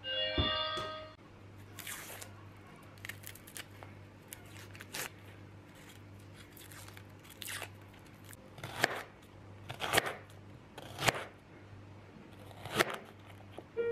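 A short electronic chime from a rice cooker opens, then shallots are peeled with light papery crackling and sliced with a knife on a cutting board, a few crisp cuts about a second apart near the end.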